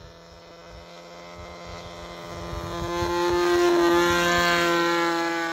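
NGH GT9 Pro 9cc single-cylinder two-stroke gasoline engine on a model aeroplane, turning an APC 12.25x3.75 propeller at part throttle during a slow, low flypast. The steady drone grows louder, peaks about three and a half seconds in as the plane passes close, then begins to fade.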